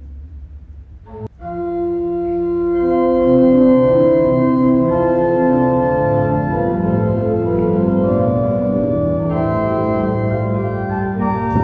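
Organ music in sustained chords. A quieter passage breaks off abruptly about a second in, and a louder passage of slowly changing chords follows.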